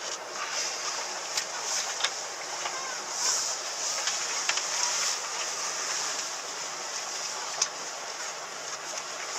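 Small motorboat running fast across choppy water: a steady rush of wind and spray, with a few sharp knocks, the loudest near the end.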